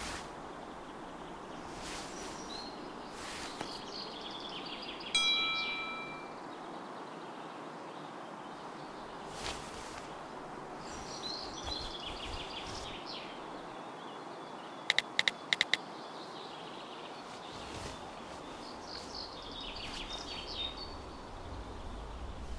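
Outdoor park ambience: birds chirping now and then over a steady background rush. About five seconds in there is a single chime-like ring that fades out, and about fifteen seconds in a quick run of five clicks.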